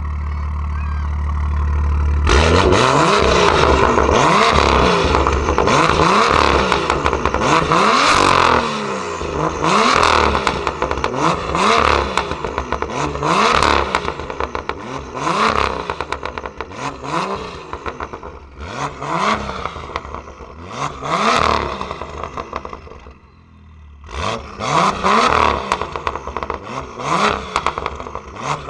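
BMW M2 F87's turbocharged straight-six through an Armytrix aftermarket exhaust, idling for the first two seconds, then revved over and over, about one rev every two seconds, with crackles and pops as it falls back each time. The revving pauses briefly about three-quarters of the way through, then resumes.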